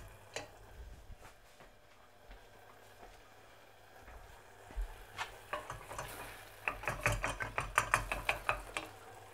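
A spoon stirring thick cranberry sauce in a stainless steel saucepan, clinking and scraping against the pan. There are a few taps near the start, then a quick run of clinks, several a second, over the second half.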